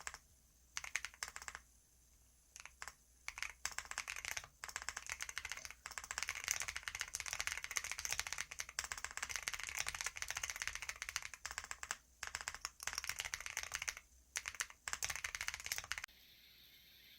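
Computer keyboard being typed on in quick runs of key clicks with short pauses. The typing stops about a second before the end, leaving a faint steady background.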